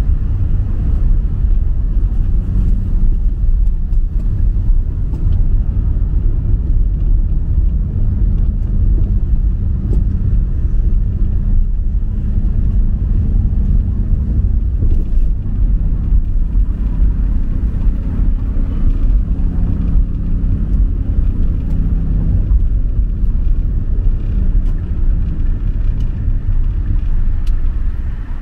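Motor vehicle running: a loud, steady low rumble with an engine hum that shifts slightly in pitch through the middle.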